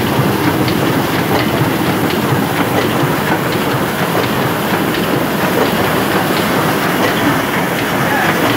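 Heidelberg 28×40 offset printing press running: a steady, loud mechanical clatter of its turning rollers and drive, with light ticks through it.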